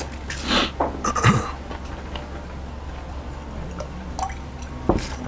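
Close-up eating and drinking sounds: chewing fried food and gulping water from a glass. There are a few short noisy bursts in the first second and a half and a sharp click near the end, over a steady low hum.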